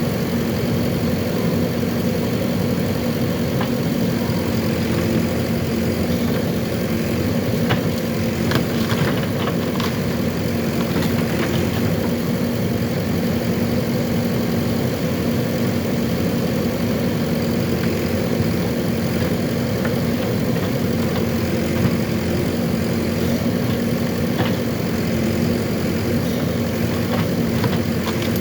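JCB 3DX backhoe loader's diesel engine running steadily, with a few sharp cracks or knocks about eight to eleven seconds in.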